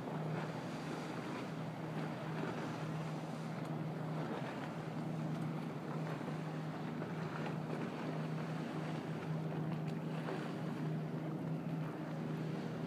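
Boat engine running with a steady hum, under a constant rush of wind and water noise on the microphone.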